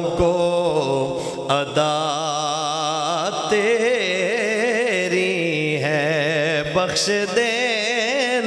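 A man chanting a naat, a devotional poem in praise of the Prophet, in long held notes that waver constantly in ornamented runs, with no clear words.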